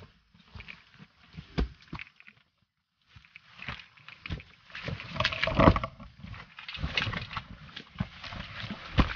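Hikers' footsteps scuffing and thudding on a steep dirt trail, with rustling of leaves and backpack gear; irregular, uneven steps. The sound cuts out completely for a moment about two and a half seconds in, then the scuffing and rustling pick up again, busier than before.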